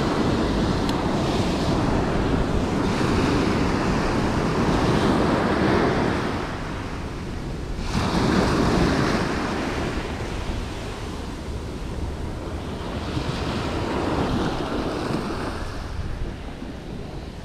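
Ocean surf breaking and washing up the sand in repeated surges, with wind rushing over the microphone. It is loudest for the first few seconds, with another surge at about eight seconds and a weaker one a few seconds later.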